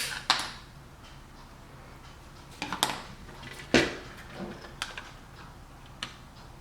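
Small hard workpieces being handled: scattered sharp clicks and knocks, the loudest right at the start and about four seconds in.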